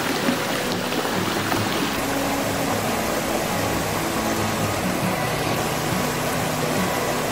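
Steady rush of a rocky stream, with background music playing over it.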